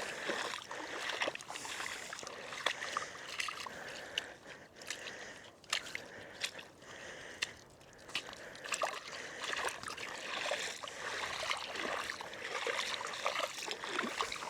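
Shallow seawater sloshing and splashing irregularly, with small crackling splashes, as a dog wades through it and stirs it up.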